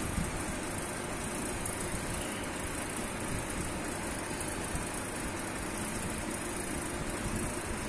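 Electric-motor-driven centrifugal pump running steadily, a continuous even noise with no change or knocks.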